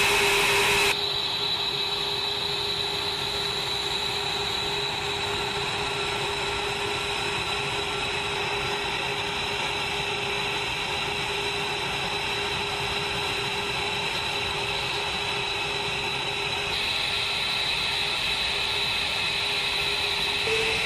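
F-22 Raptor's Pratt & Whitney F119 turbofan engines running: a steady jet whine of several held tones over a constant hiss. The sound shifts abruptly about a second in and again near the end.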